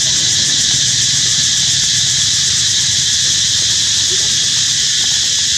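Steady, loud, high-pitched insect chorus, a continuous shrill hiss with a fast pulsing texture, over a low steady rumble.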